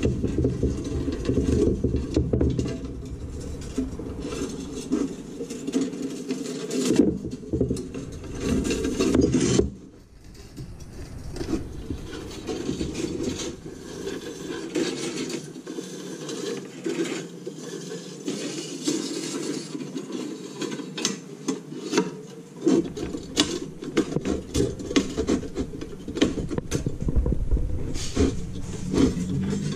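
Nichrome wire being pulled and threaded through the metal ice-cutter grid of an undercounter icemaker, which is being rebuilt with new wire. The wire rubs and scrapes, and the metal grid gives irregular clicks and rattles against a wooden workbench; it is louder for roughly the first ten seconds.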